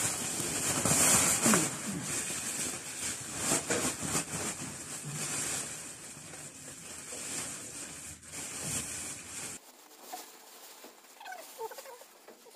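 Woven plastic sack rustling and crinkling as it is handled and packed, with scrapes and shuffles. About ten seconds in the rustling stops abruptly, and a few faint short calls follow.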